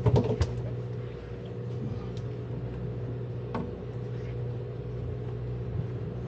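Boat engine running steadily, a constant hum, with a few sharp knocks in the first half second and another about halfway through.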